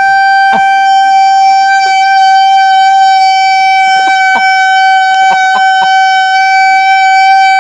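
A loud, steady, high-pitched electronic tone held at one unchanging pitch, the prank's "most annoying sound in the world". A few faint clicks and knocks sound over it.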